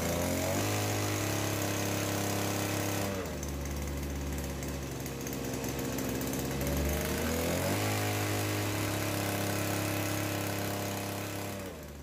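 Small two-stroke engine revved up and down by a remote-controlled throttle: it rises to high revs just after the start, holds, falls back to idle about three seconds in, revs up again at about seven and a half seconds and drops back to idle near the end.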